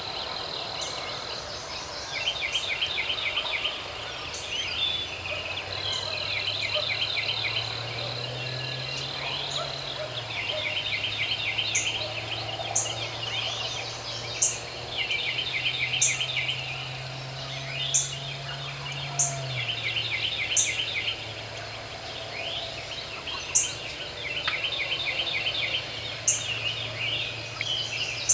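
Songbirds singing in the woods: rapid trilled phrases repeated every couple of seconds, with sharp high chip notes, over a low steady hum.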